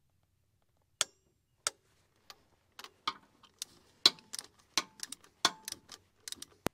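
Torque wrench knocking and clinking against the metal frame of a compact tractor: a series of sharp, irregular metallic clicks, some with a brief ring, starting about a second in.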